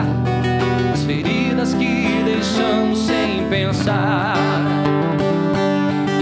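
Live song: a man singing over instrumental accompaniment, with a long held, wavering note about four seconds in.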